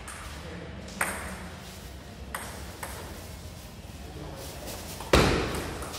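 Table tennis ball and bat clicks: one sharp tap about a second in, two lighter taps a little later, then a much louder sharp knock a little after five seconds that trails off in the hall's echo.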